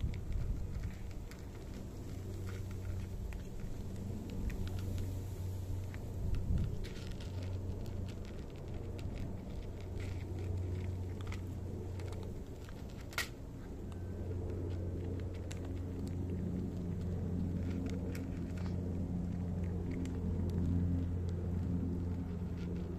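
Cats crunching dry kibble from a dish, heard as scattered small crunchy clicks, with one sharper click about halfway through. A steady low hum lies under it all and is the loudest sound.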